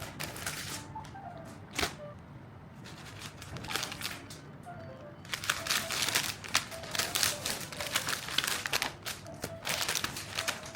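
Light background music over a dense run of crackling, crinkly handling noises, which are thickest in the second half.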